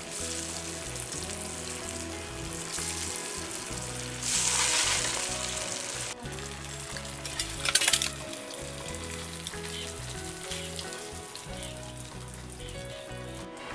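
Fish pieces deep-frying in hot oil in a black iron kadai, sizzling steadily, with a louder surge of sizzling about four seconds in and a few sharp knocks near eight seconds, over background music.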